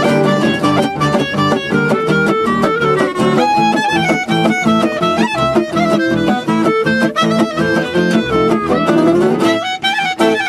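Jazz manouche (gypsy jazz) quartet playing: clarinet carrying the melody over two acoustic guitars strumming a steady rhythm and a plucked double bass.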